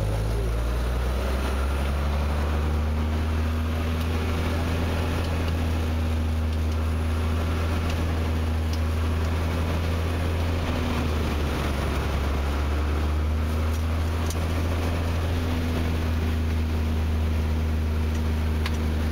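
Cessna 185 Skywagon floatplane's six-cylinder piston engine and propeller running at a steady, even drone, heard from inside the cabin while the plane moves on the water. Its pitch shifts slightly about half a second in, then holds.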